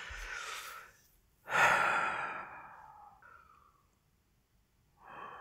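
A man sighing heavily: a soft breath in, then a long exhale about a second and a half in that fades away, and another breath near the end.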